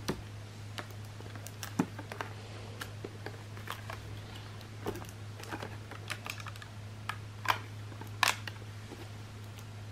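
Irregular clicks and crackles of a plastic drink bottle and wire leader being handled, the thin plastic crinkling under the fingers, with a few sharper clicks about two seconds in and two more near the end.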